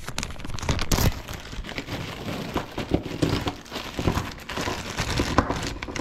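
A clear plastic zip-top bag crinkling and rustling, in dense irregular crackles, as it is handled and opened.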